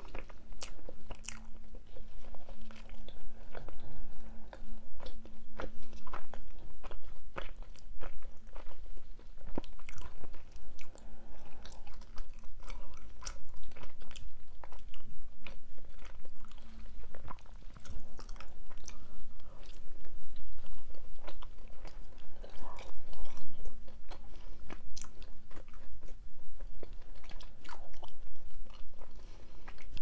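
A person chewing and biting mini pizza close to a clip-on microphone, with many short sharp mouth clicks at an irregular pace.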